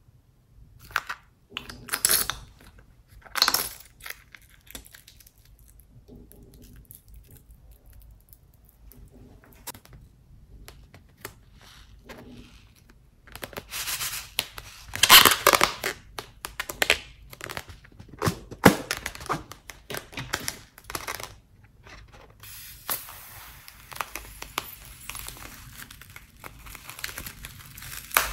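Close-up handling noises of glue-filled rubber balloons being squeezed and turned over a plastic bowl: scattered crinkling, crackling and tearing-like rustles, loudest about halfway through. In the last few seconds it turns into a steadier rustling.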